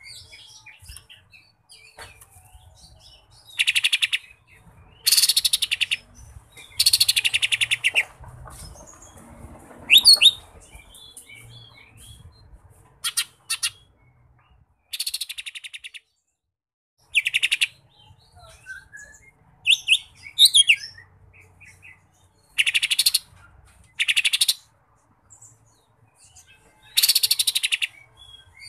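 Caged male leafbird (cucak ijo mini) singing: loud bursts of very rapid repeated chattering notes, each about a second long, coming every couple of seconds, with a few sharp rising whistles between them.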